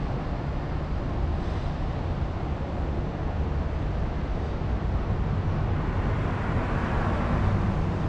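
Steady city street traffic noise, growing a little louder about seven seconds in.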